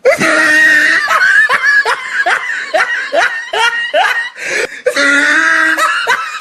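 Loud, high-pitched laughter: a run of short falling 'ha' bursts, about two a second, with longer held laughing sounds before and after.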